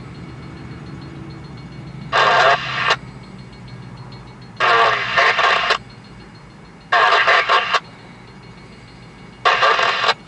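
Four short bursts of radio static from a handheld scanner, each about a second long and coming about every two and a half seconds, over a steady low rumble.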